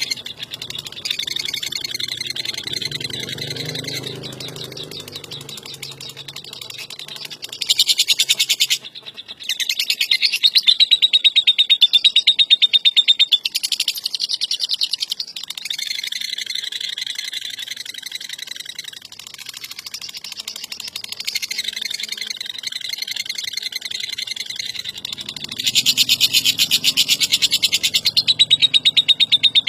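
Lovebird ngekek: a long, very rapid chattering trill of fast repeated notes, kept up almost without pause, with several louder spells and a brief break about nine seconds in.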